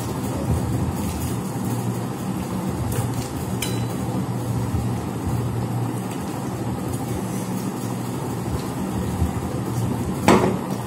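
A steady low hum in the background, with a few faint clicks of eating, and about ten seconds in a single sharp, ringing clink of a metal bowl against a metal plate.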